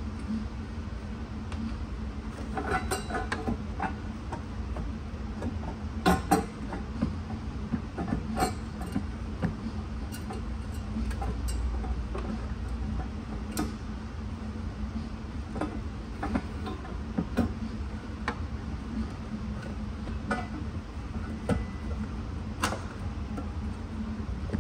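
Scattered metal clinks and knocks of hand tools against engine parts, several of them sharp and loud, over a steady low hum.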